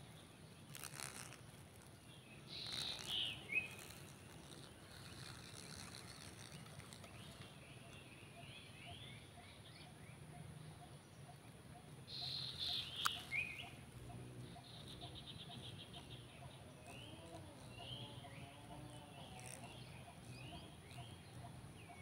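A steady high insect buzz from cicadas and katydids in the undergrowth, with short repeated bird chirps. Twice, about three seconds in and about twelve seconds in, a clear plastic bag is crinkled in the hand.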